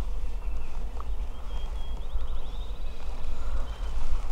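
Small songbirds chirping, with a quick trill about two seconds in, over a steady low rumble on the microphone.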